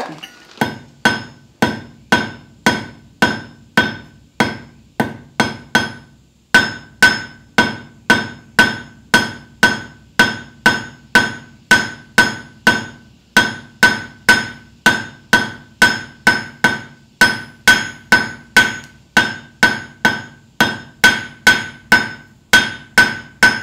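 Hand hammer striking red-hot quarter-inch bar stock on an anvil, drawing out a square taper. The blows come steadily at about two a second, each with a ringing note from the anvil, with a brief pause about six seconds in.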